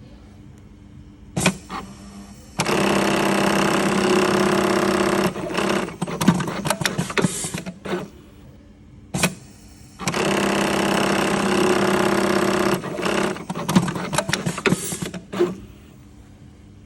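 Dürkopp 580-121 round-head lockstitch buttonhole machine sewing two cycles. Each cycle starts with a single knock, then the machine runs steadily for about three seconds, then gives a couple of seconds of rapid clattering clicks before stopping.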